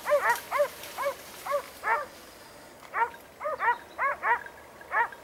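Hunting dogs barking in quick runs of short, high yelps, about a dozen in all, with a pause of about a second partway through. This is typical of hounds working a wild boar in the scrub.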